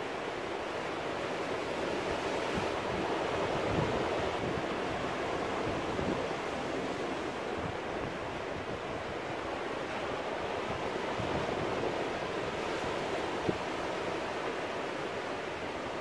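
Ocean surf washing in over rocks, a steady rush of water that swells and eases, a little louder about three seconds in and again about twelve seconds in.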